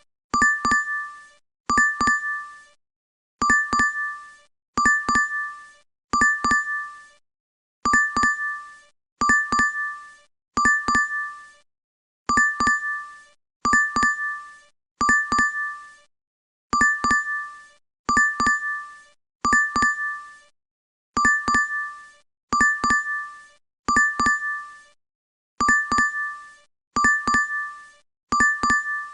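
DoorDash app notification chime playing on a loop: a quick two-note ding repeating about every second and a half, each one ringing briefly and dying away before the next.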